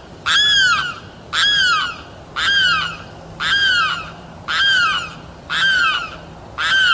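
Limpkin giving its loud wailing call over and over, about one call a second, each call rising and then falling in pitch.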